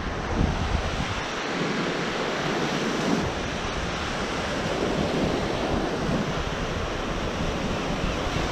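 Sea waves washing onto the shore in a steady rush, with wind buffeting the microphone.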